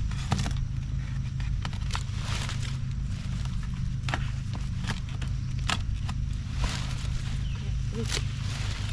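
Sweet potato vines and leaves rustling and crunching as they are pulled and handled in the bed, with many short irregular crackles, over a steady low hum.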